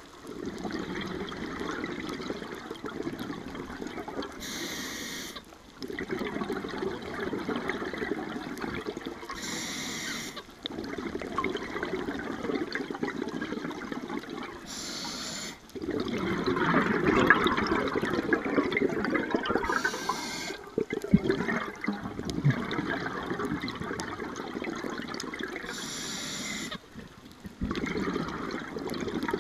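Scuba diver breathing through a regulator underwater: a short hiss of inhalation, then a long rush of exhaled bubbles, repeating about every five seconds.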